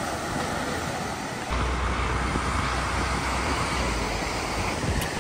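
Ocean surf washing onto a sandy beach, heard through wind on the microphone; the wind rumble gets heavier about a second and a half in.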